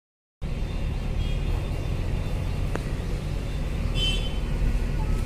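Steady road traffic rumble from a busy city street, with a short high-pitched sound about four seconds in. It begins after a brief cut to silence.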